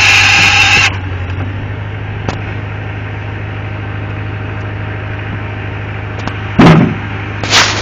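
Stanley CS06 hydraulic chainsaw running loud as it finishes a cut through a log, cutting off about a second in. A steady low hum from the Bobcat engine idling, which drives the saw's hydraulics, is left underneath. Two short loud bursts come near the end.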